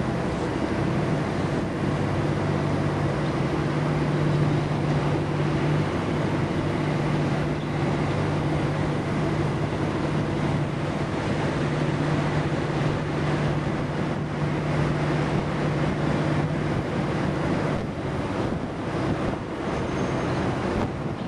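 An engine running steadily: a constant low hum over a continuous rush of noise, with the hum easing off about three-quarters of the way through.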